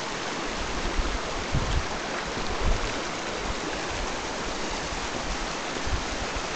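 Shallow creek water running steadily over a cobble bed, a continuous rushing babble, with a few short low bumps.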